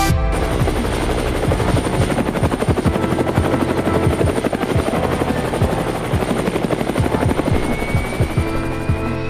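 AgustaWestland AW139 twin-turboshaft helicopter running and lifting off, its main rotor blades chopping in a rapid, even pulse over a steady high whine.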